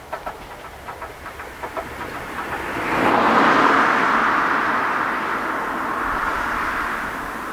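Train wheels clicking over rail joints, dying away over the first two seconds. About three seconds in, a rushing noise swells up and then slowly fades.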